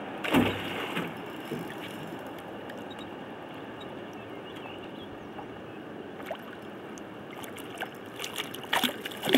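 Lake water lapping and sloshing beside a small boat. There is a loud thump just after the start, and a cluster of sharp splashes near the end as a hooked fish thrashes at the surface.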